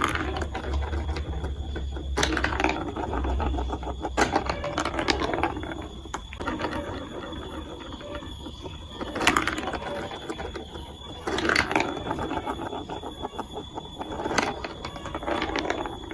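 Plastic marble run pieces and marbles clattering, in short bursts of fast rattling clicks every few seconds.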